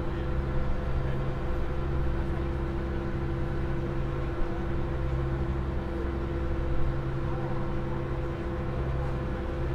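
Engines of the open car ferry Osia Methodia running steadily under way: an even, unchanging drone with a low hum.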